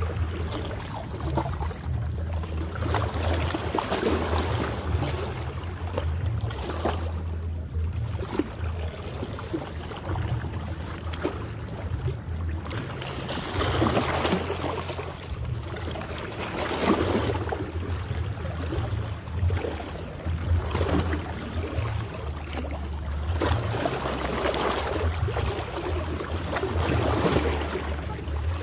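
Small sea waves lapping and splashing against shoreline boulders, swelling and washing every few seconds over a steady low rumble.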